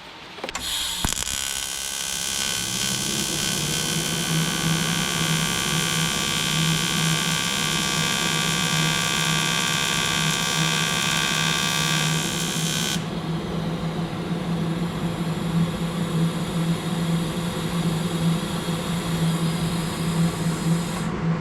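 Everlast 210EXT TIG welder running an AC arc on aluminium at 75 frequency and 25 balance: a steady, loud buzz with a hiss on top, starting about half a second in. The hiss drops away about two-thirds of the way through while the buzz carries on.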